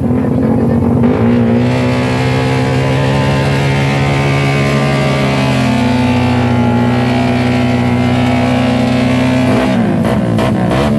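Racing motorcycles revving hard and holding high revs at the drag-race start line, then launching about ten seconds in, their engine pitch sweeping up and down through the gears as they pull away.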